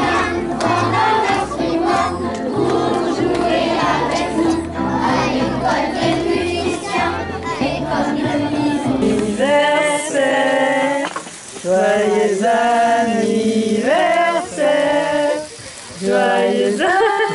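Background music with a bass line and singing, which gives way about ten seconds in to a group of people singing together unaccompanied, with two short pauses between lines.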